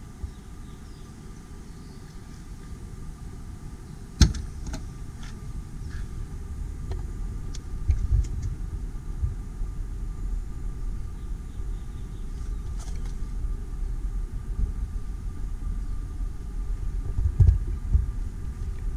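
A 1968 Triumph GT6's door clicking open sharply about four seconds in, followed by a few lighter clicks and knocks, over a steady low rumble.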